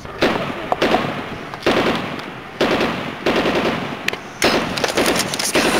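Machine-gun fire sound in about five rapid bursts, each about a second long, with short breaks between.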